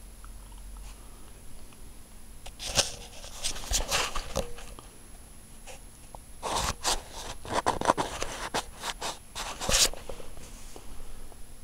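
Samsung WF9700N3W front-loading washing machine on its wool cycle, its drum turning gently in two short spells. Water and the wet blanket load slosh and swish in irregular crackling bursts, with a quiet lull between the spells.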